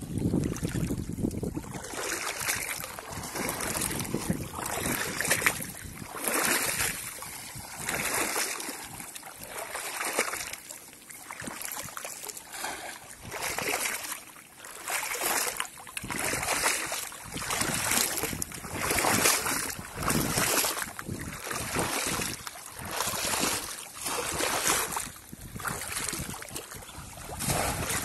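Shallow water splashing and sloshing in repeated surges, about one every second or so, as a man wades and plunges a bamboo polo fish trap into it.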